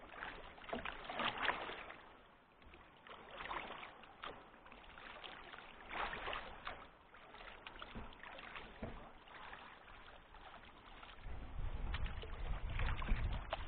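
Kayak paddle strokes dipping and splashing in the river, a few seconds apart. A low rumble comes in near the end.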